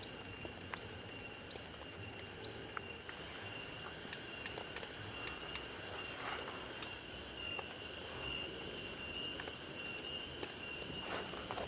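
Steady high-pitched insect chirring, with scattered sharp ticks over a soft background hiss.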